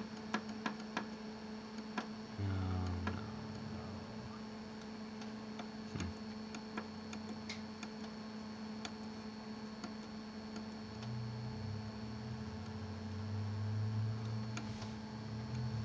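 HP LaserJet 5M running with a steady fan hum, while its control-panel buttons are clicked over and over as the menus are paged through: a quick run of clicks at the start, then single clicks every second or two. A low rumble rises over the last few seconds.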